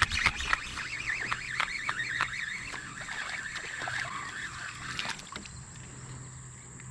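Spinning reel cranked quickly to bring in a fish, grinding with a wavering squeak and sharp clicks that stop about five seconds in; the angler says the reel is screwed up.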